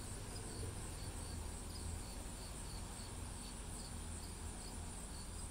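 Quiet room tone: a low steady hum with a faint, high-pitched chirp repeating about three times a second.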